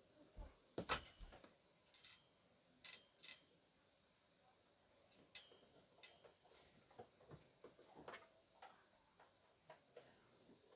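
Hands handling the metal casing of a power amplifier: faint, irregular clicks and taps, with a louder knock about a second in and two sharp clicks around three seconds.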